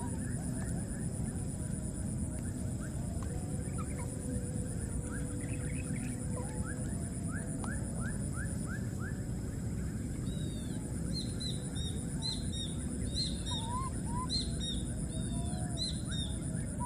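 Short high animal chirps over a steady low rumble of noise. First comes a quick run of falling chirps, then higher arched chirps in small clusters in the second half.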